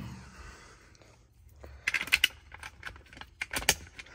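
Light clicking and rattling of small metal hardware being handled, in two short clusters about two seconds in and again near the end.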